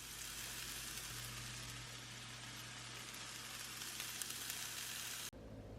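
Rice frying in a hot pan, a steady sizzling hiss that cuts off abruptly near the end.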